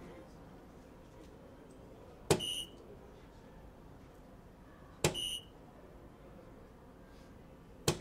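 Three soft-tip darts striking an electronic DARTSLIVE dartboard, about two and a half seconds apart. The first two hits are each followed by the machine's short electronic beep as it registers the score, a single 15 each time; the third dart lands right at the end.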